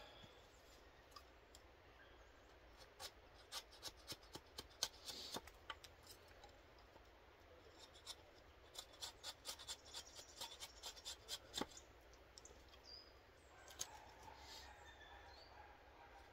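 A knife blade scraping and shaving along a stick of wood in short, quick strokes, about four a second, in two runs with a pause between.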